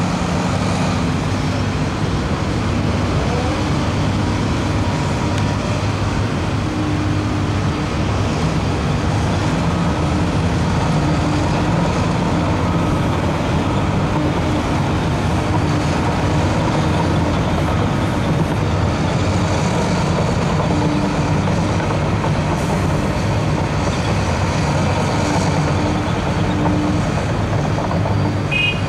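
Heavy diesel engines of a Case excavator and Mercedes dump trucks running steadily, a low engine hum that does not let up.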